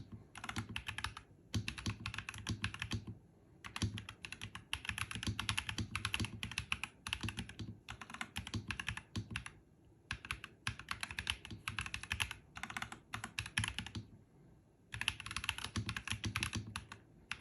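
Typing on a NuPhy Halo 65 mechanical keyboard with Rose Glacier switches: quick runs of keystrokes in bursts, broken by brief pauses, the longest about a second near the middle and again a little before the end.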